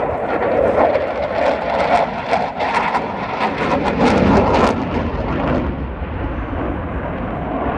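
Dassault Rafale fighter's twin Snecma M88 jet engines, loud jet noise with a harsh crackle through the middle that turns duller after about five seconds.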